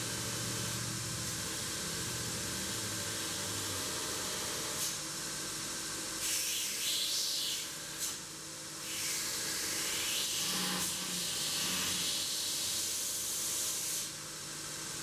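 Pencil scratching on paper in stretches through the second half, drawing a knife outline, over a steady background hiss.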